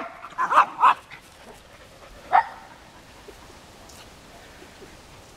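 A dog barking: a quick run of sharp barks in the first second, then a single bark about two and a half seconds in.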